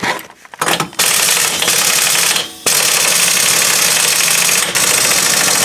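Impact wrench hammering on the rear axle nut of a 2005 Chevy Equinox hub to break it loose: a short run about a second in, a brief pause, then a longer continuous rattle with one short break near the end.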